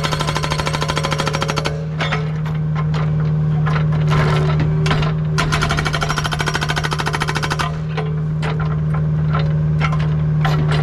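Hydraulic breaker hammer on a mini excavator pounding rock in rapid runs of blows, over the excavator's diesel engine running steadily. One run of blows stops about two seconds in and another runs from about halfway to near the end, with scattered knocks between them.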